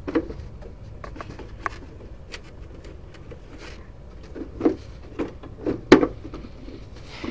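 Scattered clicks and knocks of hands working on the front body panel of an S12X Vita Monster mobility scooter. The knocks grow louder in the second half, with the sharpest one about six seconds in.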